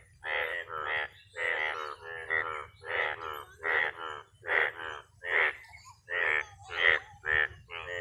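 A chorus of frogs calling from a rain-filled pond: short repeated calls, about two a second and often overlapping in pairs, kept up without a break.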